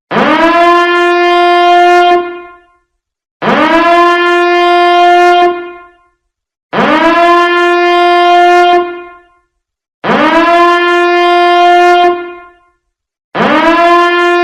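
Biohazard alarm sounding in repeated horn-like blasts, one about every three and a third seconds. Each blast swoops up in pitch at the start, holds a steady tone for about two seconds, then fades away.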